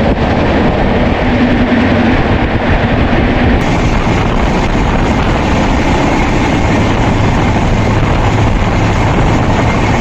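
Passenger train running fast, heard from the open doorway of a coach: a loud, steady rush of wheel and track noise.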